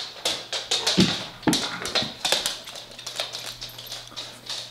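A run of irregular sharp clicks and taps, a few to each second, over a faint steady low hum.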